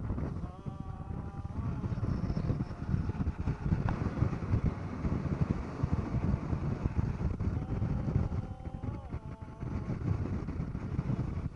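Motorboat under way: a loud, uneven rumble of engine and wind on the microphone, with brief bits of voices about a second in and again about eight seconds in.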